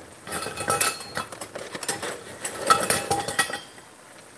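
Metal kitchen utensils clinking and rattling against each other off the pan, in two spells of clatter with short ringing notes, going quieter near the end.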